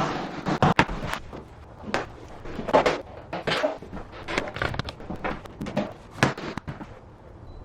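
Irregular knocks, taps and short scrapes of vinyl click-lock floor planks being handled and fitted together.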